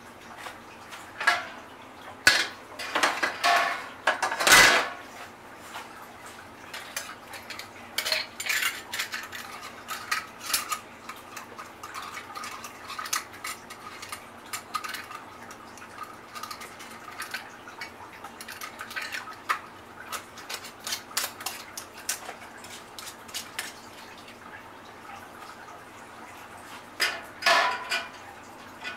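Canning lids and screw bands clinking against glass mason jars as they are set on and screwed down. It is a scatter of small clicks and clatter, with the loudest knocks about four seconds in and again near the end.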